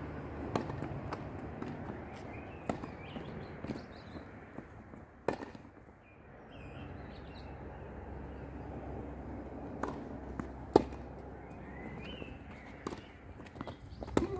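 Tennis balls being struck with rackets and bouncing on the hard court during a doubles rally: sharp pops at irregular intervals, the loudest about eleven seconds in, over a low steady hum.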